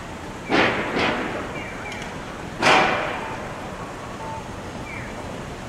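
Sapporo streetcar moving on snowy street track, with three short, loud bursts of hiss about half a second, one second and two and a half seconds in.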